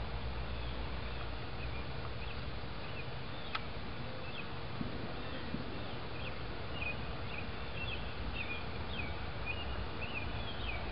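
Small birds chirping over and over above a steady low outdoor rumble, with a single sharp click about three and a half seconds in.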